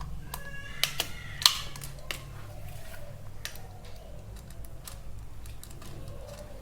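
Scattered clicks and light clinks of tools and wires being handled while a switchboard is wired, with a couple of short metallic rings about a second in, over a low steady hum.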